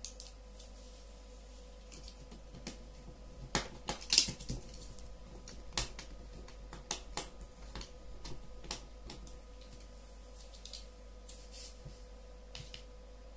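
Irregular small clicks and taps of plastic headphone parts and a small screwdriver being handled while an opened Bluetooth headphone ear cup is worked on, busiest about four seconds in.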